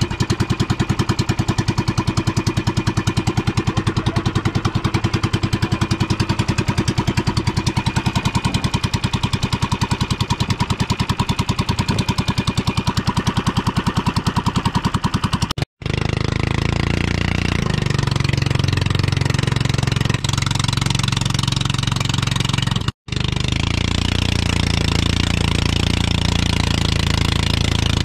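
Small engine of a motorized outrigger boat running with a rapid, even pulsing. About halfway through it gives way to a smoother, steadier run, broken by two brief dropouts.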